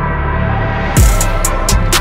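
Background music: an electronic track with held chords, where a deep kick drum and sharp percussion hits come in about a second in.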